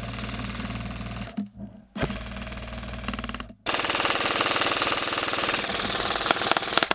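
Airsoft electric rifle firing long full-auto bursts, a very rapid even clicking over the gearbox motor's hum. The bursts stop about a second in and again near the middle, and the last and loudest runs to the end.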